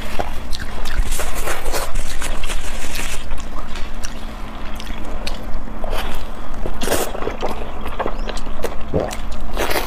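Close-miked eating sounds: wet chewing and mouth smacks, with irregular sharp clicks and smacks. The two loudest come about seven seconds in and near the end. A steady low hum runs underneath.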